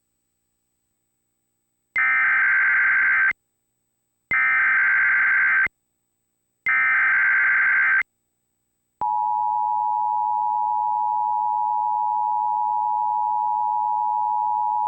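Emergency Alert System tones: three short bursts of screeching SAME digital header data, then about nine seconds in the steady two-tone EAS attention signal starts and holds. The tones announce a tornado warning.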